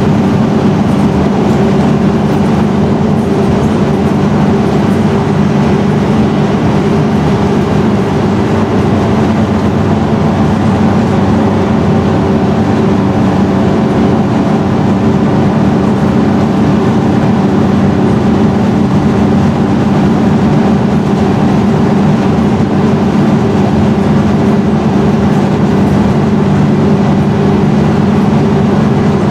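Scania N113DRB double-decker bus's six-cylinder diesel engine running steadily, its loud hum holding one unchanging note throughout.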